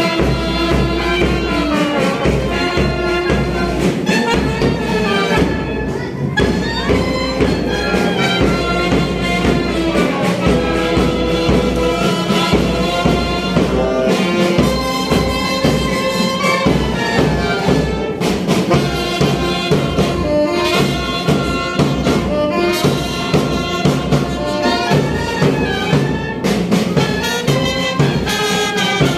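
Police brass band playing a tune live: clarinets and saxophone over brass and a steady bass-drum beat.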